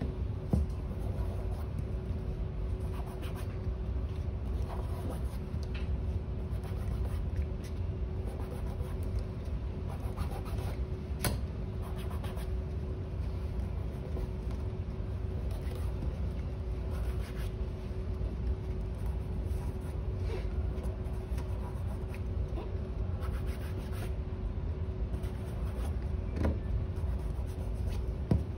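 Steady low rumble with a faint constant hum, with a few soft knocks and taps as a leather shoe is turned over and set down on a table.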